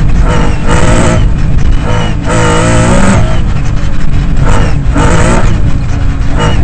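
Lancia Stratos rally car's engine heard from inside the cabin, revving up and dropping back several times as it is driven hard, over a constant low rumble of tyres on gravel.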